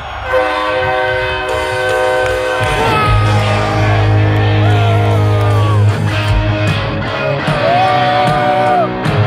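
Live rock band playing loud in a stadium, recorded from the crowd: a held chord sounds, then a lead electric guitar bends notes over a steady bass note, with drum hits coming in after the halfway point.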